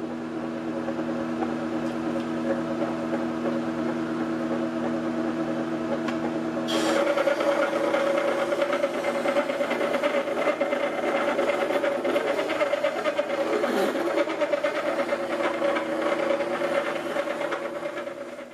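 Wet wheel grinder's motor running with a steady hum. About seven seconds in, a steel planer knife is pulled against the turning whetstone and a rough grinding scrape joins the hum, lasting until the sound dies away at the end.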